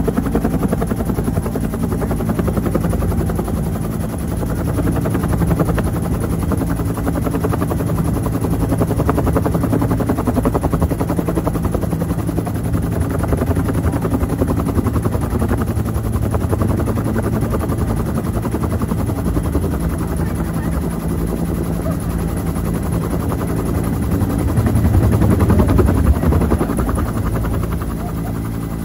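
Bell UH-1 Huey helicopter in flight: the main rotor beats rapidly over the steady run of the turbine, heard loud from inside the cabin. The sound swells briefly near the end.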